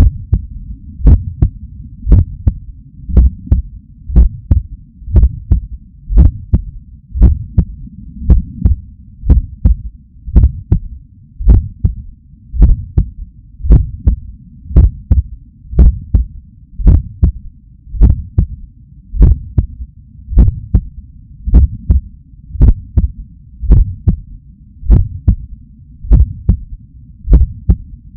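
A human heart heard through a Stemoscope electronic stethoscope stuck to the chest: a steady lub-dub, about one beat a second, beating hard. Beneath it runs a low, continuous rumble.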